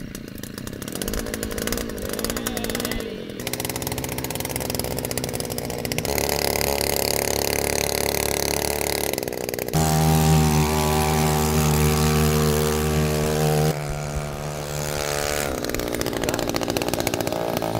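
A cheap two-stroke, weed-eater-type gas outboard motor running loud, pushing a small jon boat. Its pitch and loudness step up about ten seconds in and drop back a few seconds later.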